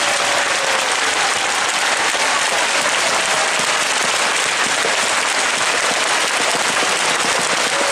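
Large audience applauding steadily, many hands clapping at once into a dense, even wash of sound.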